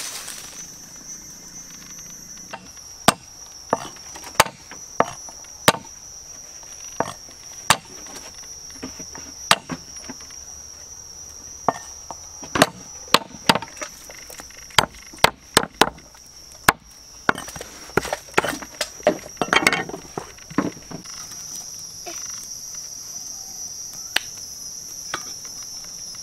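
Sharp chopping strokes with a blade, irregular at about one to two a second, quickening in the middle and stopping a few seconds before the end, over a steady high-pitched insect drone.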